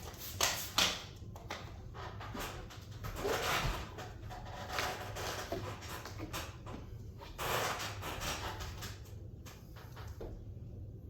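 Squeegee strokes sliding and rubbing over wet window film on glass, a few swishes of about a second each with scattered clicks and knocks between them, pushing the water down toward the rags.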